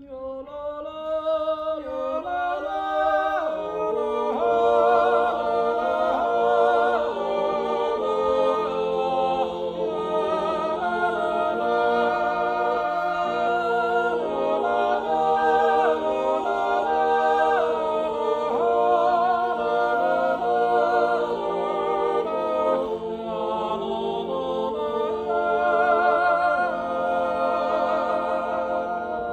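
A Zäuerli, the wordless Appenzell natural yodel, sung a cappella by six men: held chords underneath, with wavering upper voices yodeling over them.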